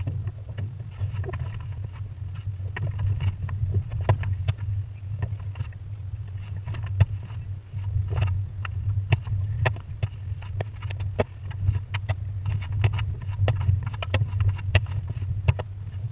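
Wind buffeting a camera mounted on a Pacer sailing dinghy's foredeck, a steady low rumble, with frequent irregular clicks and knocks from the loose, flapping sails and rigging.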